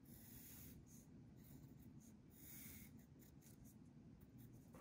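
Faint scratching of a pencil marking thick cardstock, in a few short strokes.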